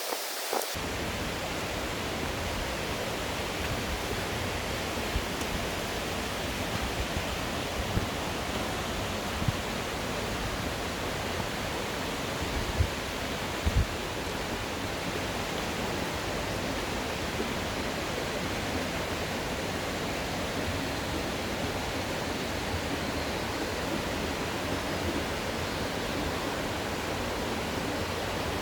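Steady rush of a mountain stream and waterfall, an even dense hiss of falling water, with a few brief low thumps near the middle.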